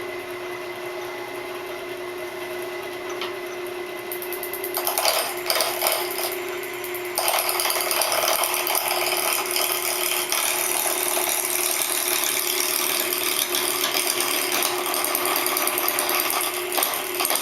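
Wood lathe running, then a round-nose scraper cutting into a spinning, out-of-round padauk and maple laminate blank to true it. Scattered ticks of the tool catching the high spots come about five seconds in, turning into continuous, louder scraping from about seven seconds in.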